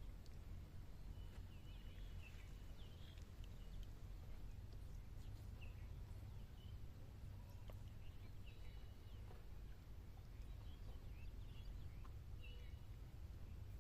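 Outdoor ambience: birds chirping in short, scattered calls over a steady low rumble.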